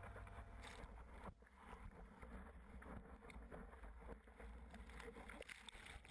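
Faint, muffled wash of ocean surf around the camera, uneven and with a low rumble underneath.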